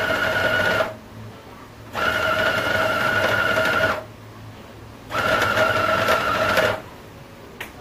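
Food processor motor running in pulses: three runs of one to two seconds each, with a steady whine and short pauses between them. It is pulsing flour, butter and water into pie dough, short pulses so that the dough isn't overworked, and the dough is clumping together.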